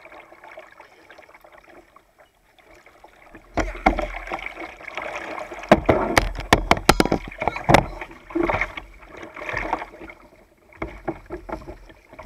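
Kayak paddle strokes in river water: splashing and dripping beside the hull, starting a few seconds in. A quick run of sharp knocks about six to eight seconds in.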